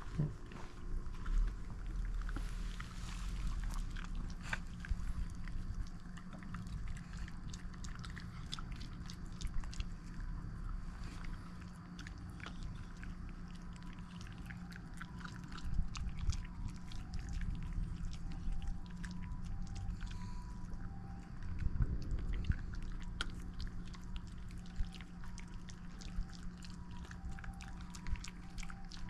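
Shiba Inus crunching and chewing crispy chicken-breast jerky, with many short, irregular crunches throughout.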